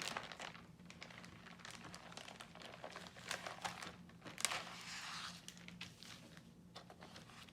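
Packaging being handled and unwrapped, crinkling and rustling in irregular bursts with scattered small clicks, busiest around the middle.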